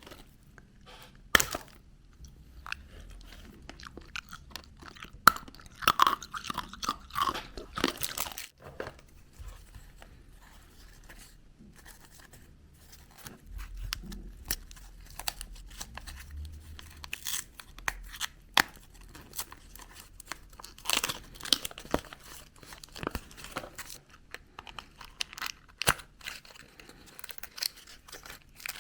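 Surprise eggs being opened by hand: wrappers crinkling and shells cracking, making irregular crackles and sharp clicks with a few louder snaps.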